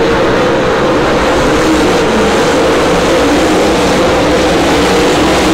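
Dirt super late model race cars' engines running together around a dirt oval, a loud steady drone whose pitch wavers slowly as the cars go through the turns.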